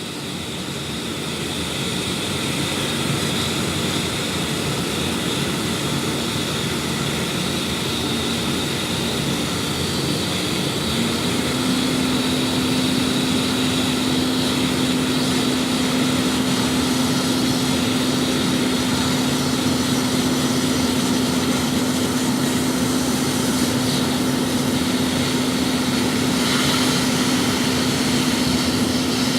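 Nitrogen plastic welder running during a weld: a steady hiss with a continuous low machine hum that steps up slightly in pitch about eleven seconds in.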